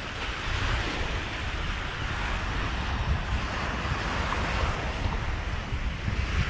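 Steady wash of surf, with wind buffeting the microphone.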